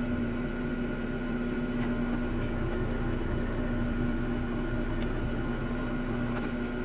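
Drill press running with a steady, even motor hum, set up with an 1/8 inch bit to drill screw pilot holes.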